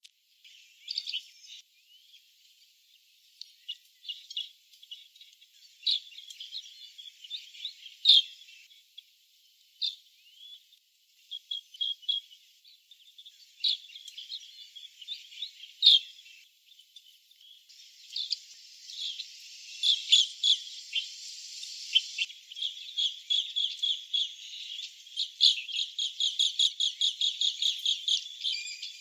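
Asian green bee-eaters calling: short, high chirps and trills, scattered at first, then a fast run of repeated notes, about three or four a second, over the last several seconds.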